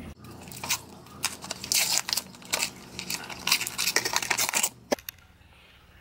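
Paper wrapper being torn off a bar of Ivory soap and crumpled, in irregular crinkly bursts that stop about five seconds in.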